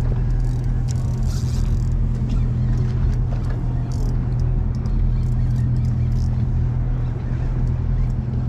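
Charter fishing boat's engine running with a steady low hum, joined by scattered faint clicks.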